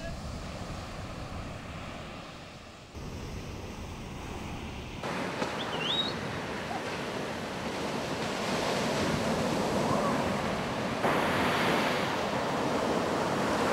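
Ocean waves breaking on the shore, with wind on the microphone. The surf noise jumps up abruptly a few times and is loudest in the second half.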